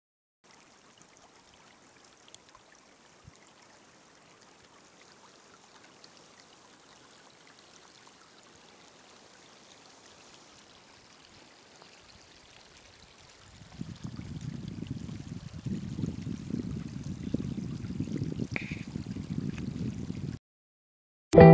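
Faint steady outdoor rushing noise, like running water. About two-thirds of the way in, a louder low rumbling noise joins it, then both cut off abruptly shortly before the end.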